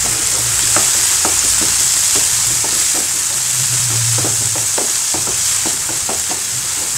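Chopped yardlong beans and onions sizzling in oil in a non-stick frying pan while a wooden spatula stirs them, with irregular scrapes and taps of the spatula against the pan about twice a second over a steady sizzle.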